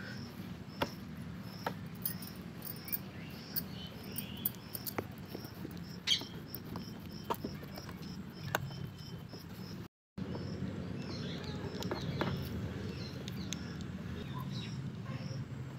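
Hands pressing and rolling dough on a steel tray, with scattered soft taps and clicks, while a bird's short high chirp repeats about twice a second for most of the first ten seconds, over a low steady hum.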